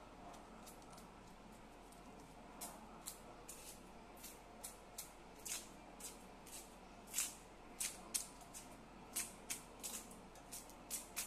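Dry papery skin of a red onion crackling as it is cut and peeled away with a small knife: short, sharp, irregular crackles, few at first and coming more often after about two and a half seconds.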